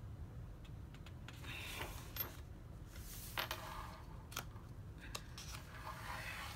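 Pages of a coloring book being turned and smoothed flat by hand: soft paper rustles and swishes with a few light clicks.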